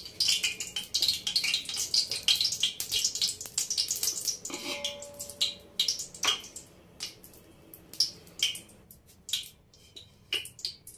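Oil heating in a large aluminium cooking pot on a gas stove, crackling and spitting with dense little pops, with a short metallic ringing clank about halfway through. After that the crackle thins out to scattered pops.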